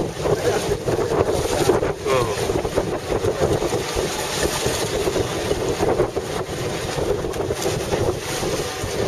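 Wind buffeting the microphone over a boat's outboard motor running steadily, with seawater washing against the hull.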